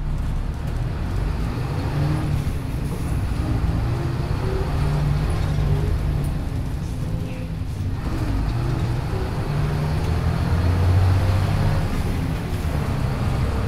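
Cabin sound of a 1996 Hino Blue Ribbon city bus (KC-HU2MPCA) under way: its diesel engine running with a low drone and road rumble, the engine note rising and falling, with a brief dip a little past the middle.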